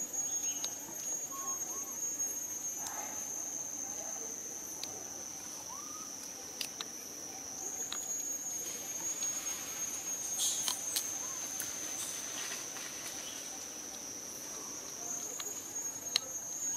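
Insects trilling steadily at a high pitch, with a few faint short rising chirps and scattered light clicks over it.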